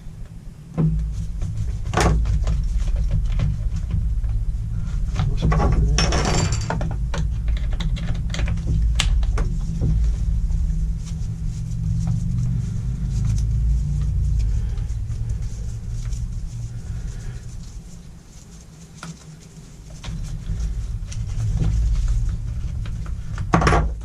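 Scattered clicks, knocks and clatter of hand tools and small parts being handled, over a steady low hum.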